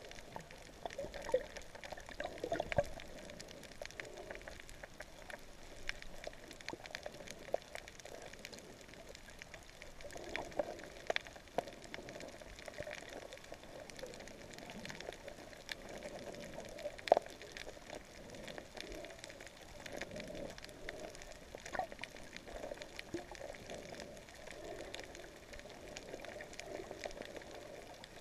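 Underwater reef sound picked up by a camera in its housing: a dense, steady crackle of clicks, with faint humpback whale song wavering in the background. A few louder pops stand out, the sharpest about two-thirds of the way through.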